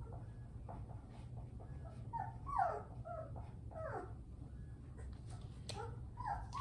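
Three-week-old Bernese Mountain Dog puppy whimpering: several short cries, each falling in pitch, the loudest about two and a half seconds in and another about four seconds in.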